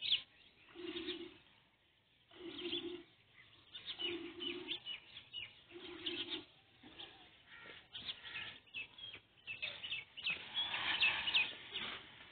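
A dove cooing: a low call repeated about every second and a half for the first half, over small birds chirping. The chirping grows busier and louder near the end.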